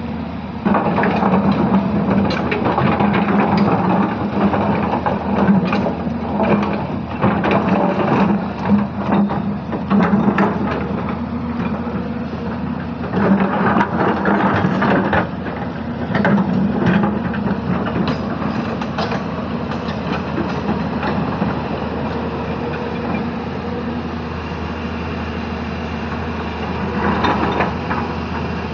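Hyundai 220-9S crawler excavator's diesel engine running under load, its drone swelling and easing as the hydraulics work, while the bucket grinds and knocks among boulders, sending stones clattering. The knocks are thickest through the first two-thirds, ease off, and pick up again near the end.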